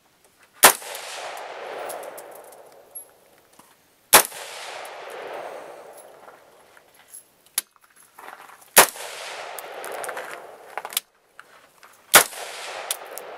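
Four single shots from a Yankee Hill Machine YHM-15 AR-15 carbine, fired slowly at about one every three and a half to four and a half seconds, each followed by a long echo that dies away. A few faint clicks come between the shots.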